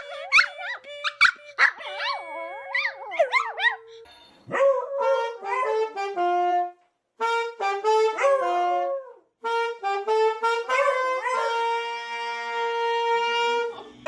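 A small terrier howls in wavering, bending high notes for about four seconds. Then a saxophone plays a slow run of held notes, ending on one long note.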